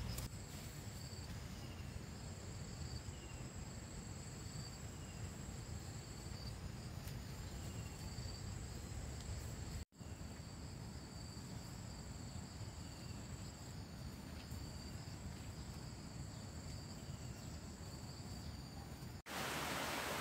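Insects trilling in a steady chorus: a high continuous trill over a lower chirp that pulses about once a second. The sound breaks off for an instant about halfway and again near the end, where a steady hiss takes over.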